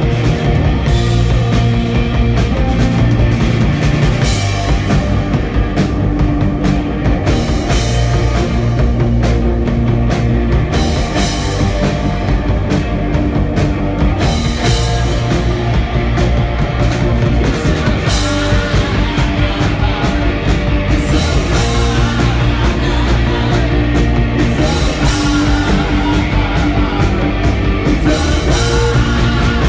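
A rock band playing loud live: electric guitar, electric bass and drum kit, with cymbal crashes cutting through again and again.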